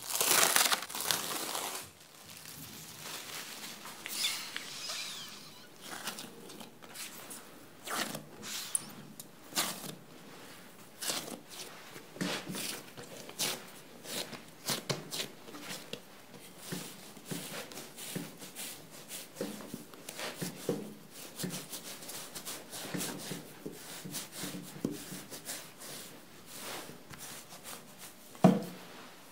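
Plastic cling film crinkling as it is peeled off a glass bowl, loudest in the first two seconds. Then soft rubbing, patting and small taps as hands press risen sweet-pumpkin bread dough flat on a countertop, with a rolling pin knocking and rolling over the dough near the end.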